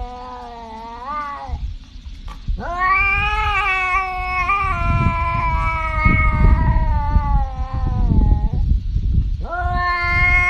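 Striped tabby cat yowling. A drawn-out call ends about one and a half seconds in, then comes one long wavering yowl of about six seconds, and another begins near the end. A low rumble runs under the long yowl.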